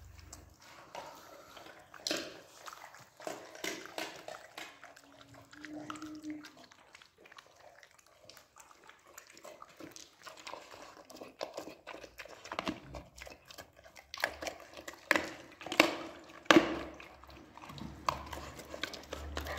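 Belgian Malinois eating wet food with broth from a clay bowl: irregular chewing and lapping, with clicks of teeth and snout against the bowl. The loudest clicks come in the last few seconds.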